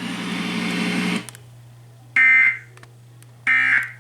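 About a second of harsh static. Then two short, shrill digital data bursts come a little over a second apart. These are the EAS end-of-message data tones (SAME "NNNN" bursts) that close the alert broadcast.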